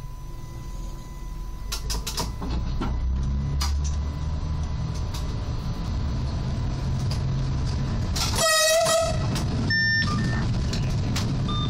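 SWEG NE81 diesel railcar pulling away from a station stop, its engine rumble building about two seconds in. Roughly two-thirds of the way through the train horn sounds once, a short toot, followed by brief high beeps in the cab.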